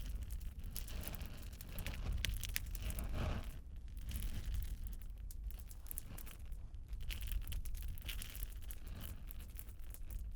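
Fire crackling: irregular sharp pops and snaps over a low steady rumble of flames.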